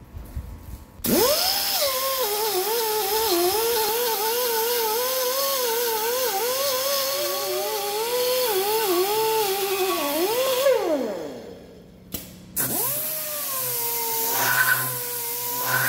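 Air-powered grinders with small abrasive discs cleaning rust off the steel bore of a CAT 777 suspension strut barrel. A right-angle grinder whines from about a second in, its pitch dipping and wobbling as the disc bears on the metal, then spins down near eleven seconds. A straight die grinder on a long extension starts up a second later and whines steadily, with short grinding scrapes as it touches the bore.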